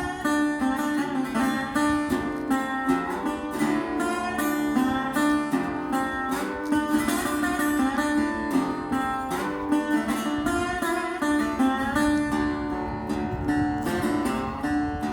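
Background music led by strummed and plucked acoustic guitar, with a steady rhythm.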